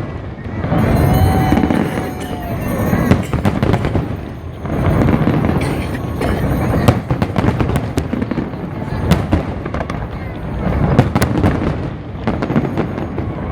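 Large fireworks display going off in rapid succession: many sharp bangs and crackles over a continuous low rumble of bursts.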